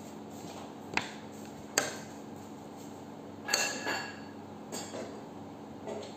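Metal spoon and a plastic tub of tahini being handled over a mixing bowl: sharp clicks about one and two seconds in, then a cluster of knocks with a short ringing clink about three and a half seconds in, and a few lighter taps as the spoon scoops the tahini out.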